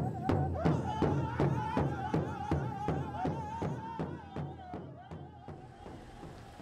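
Powwow drum group: a large drum struck in a steady beat of nearly three strokes a second, under high, wavering singing. The drumming and singing fade out about five seconds in.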